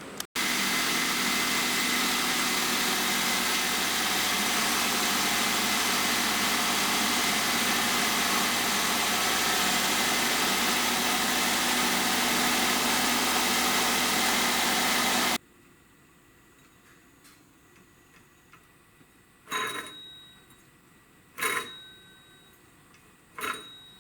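Suzuki HA23V Alto van's engine running steadily and loud, close to the microphone, for about fifteen seconds, then cutting off suddenly. After it come three short sharp sounds about two seconds apart over a faint background.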